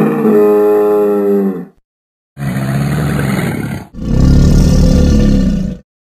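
Dinosaur roar sound effects: a long pitched roar that ends about two seconds in, then after a short pause two more roars back to back, the last with a deep rumble underneath.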